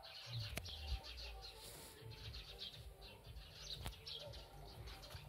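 Birds chirping, many short high chirps scattered throughout, over a low rumble and a few clicks from the handheld camera being moved about.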